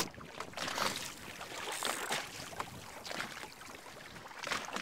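Small choppy waves lapping and slapping against the side of a small fishing boat, with a couple of light knocks, one about a second in and one near the end.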